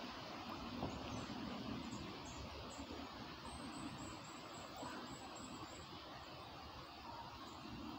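Faint steady outdoor background noise with small birds chirping faintly in high short notes, including a quick run of chirps about halfway through.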